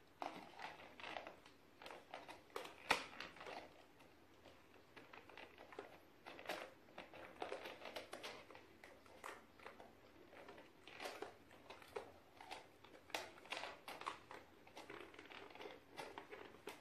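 Faint, irregular rustling, squishing and soft clicks of hands working slime and handling small plastic containers on a tabletop, with one sharper click about three seconds in.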